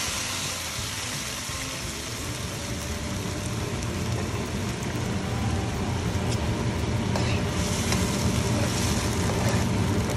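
Boiled moong dal with fenugreek leaves sizzling in hot oil tempered with whole spices in a kadai. The sharp sizzle of the pour dies down in the first couple of seconds. It gives way to a steady low rumble of heating and bubbling that slowly grows louder.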